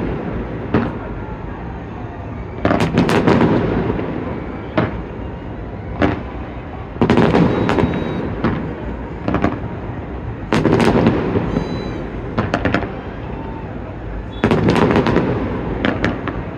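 Fireworks show: aerial shells bursting in volleys every couple of seconds, each volley a quick run of booms and cracks that trails off into a low rumble.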